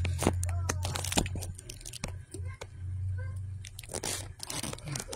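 Crackling and rustling handling noise as a phone is moved about in the hand, with many sharp clicks and a denser burst of rustling near the end, over a steady low hum.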